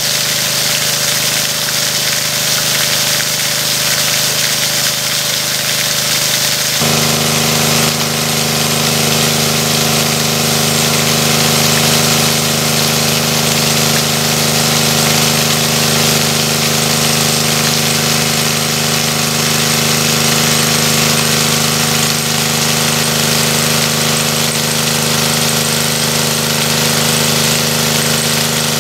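Small engine-driven water pump running steadily as it pumps water out of a pond, with water gushing from its discharge pipe in the first few seconds. About seven seconds in, the engine is abruptly heard closer, its steady hum louder.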